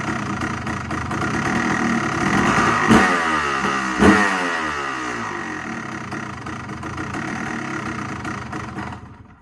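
2003 Honda CR250R's 250 cc two-stroke single running on a newly fitted Lectron carburetor, with two sharp throttle blips about three and four seconds in, then settling back before it dies away near the end. The owner reckons the idle probably needs a little adjusting.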